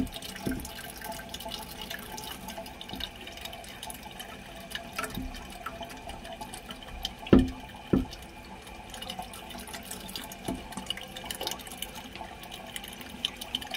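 Water trickling and dripping in a toilet tank as gloved hands work on the flush lever arm and flapper chain, with small handling clicks and two sharp knocks a little over halfway through.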